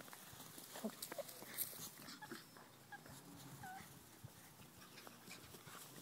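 Young puppies giving a few faint, brief whimpers and squeaks among scattered light rustles and ticks as they move about on grass.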